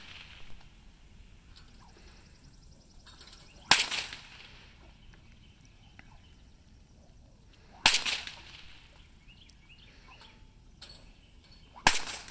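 Three loud, sharp cracks about four seconds apart, each with a short echo, made by the rider while mounted on a standing horse.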